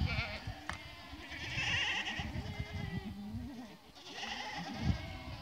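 A herd of goats and kids bleating, several calls overlapping. A long, high, wavering bleat comes about two seconds in and another near four seconds.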